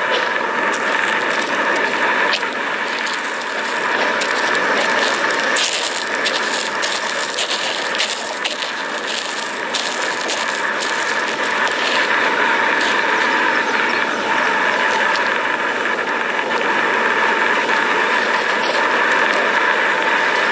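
Erupting lava fissure giving off a steady, jet-like rushing noise, with a brief patch of crackling about a third of the way in.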